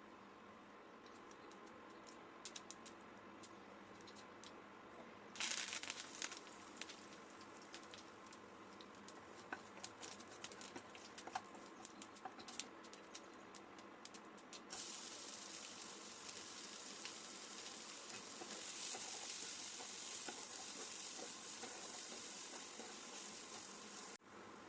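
Food frying in hot oil in a pan. The sizzle starts suddenly about five seconds in with scattered crackles, turns into a steadier, louder sizzle about fifteen seconds in, and cuts off abruptly just before the end.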